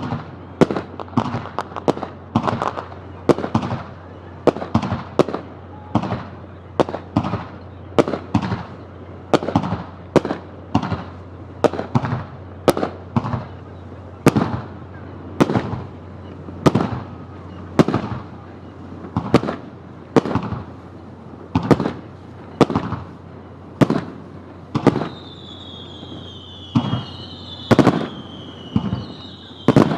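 Aerial firework shells bursting in quick succession, a sharp bang every half second to second, each trailing off in an echoing rumble. Near the end, high whistles falling in pitch repeat over the bursts.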